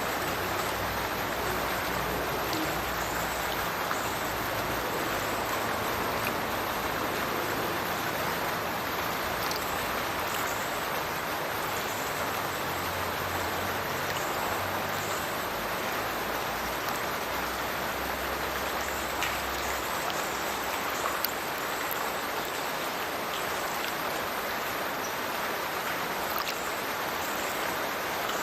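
A small burn pouring from a culvert and splashing into a river below, a steady, even rush of falling and running water.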